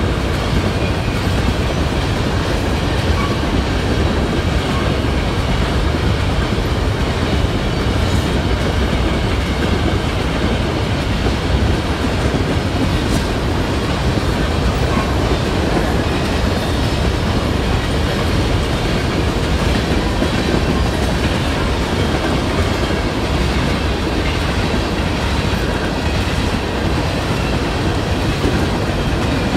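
Freight train cars rolling past, a steady rumble of wheels on rail.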